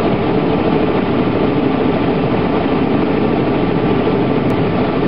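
Helicopter engine and rotor noise heard from inside a cabin, loud and steady.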